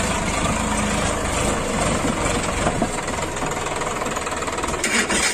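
Sonalika DI RX tractor's three-cylinder diesel engine running steadily as it pulls a loaded trolley over muddy ground, dipping briefly near the end.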